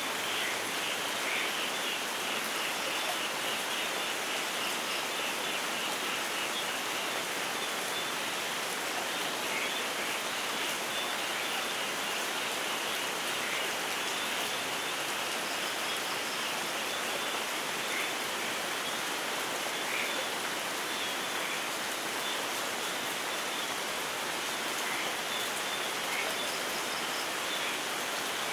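Steady rainfall in a rainforest, with a faint, rapid, high-pitched pulsing chorus underneath that is plainest in the first ten seconds or so.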